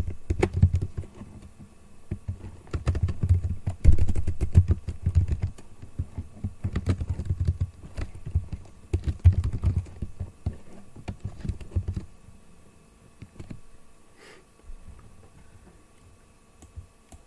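Computer keyboard typing: quick runs of keystrokes, thinning out to a few scattered clicks after about twelve seconds.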